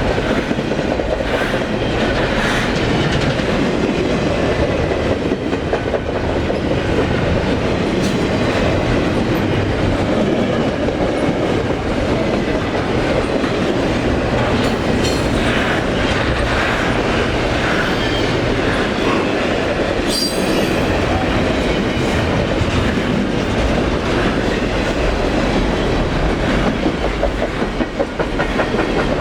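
A train rolling past, wheels clicking steadily over the rail joints. A brief high wheel squeal sounds about two thirds of the way through.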